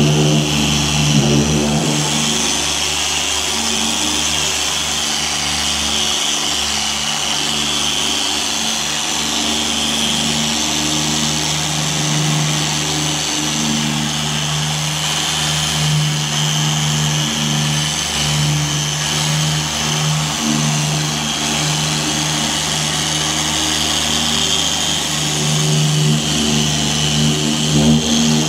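Handheld electric car polisher with a foam pad running steadily on a car bonnet's paintwork, a constant motor hum with a hiss above it, as light scratches in the paint are polished out.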